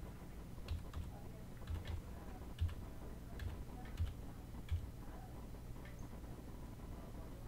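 Irregular light clicks and knocks, about a dozen in the first five seconds, over a steady low hum; the clicks stop and the hum carries on alone.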